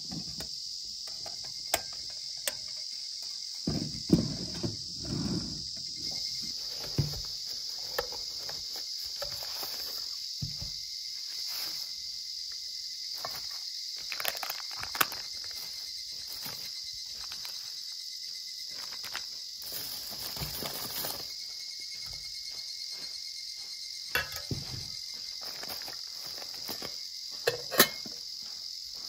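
A steady high-pitched insect chorus, as in midsummer. Over it come scattered light clicks and knocks of metal being handled: a folding titanium stove's panels and an aluminium pot and lid, with the sharpest knocks near the end.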